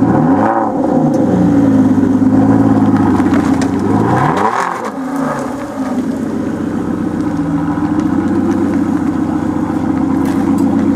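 2013 Aston Martin Vanquish's V12 engine blipped twice, about a second in and again about four seconds in, each a quick rise and fall in pitch. It then runs steadily at low revs as the car pulls away slowly.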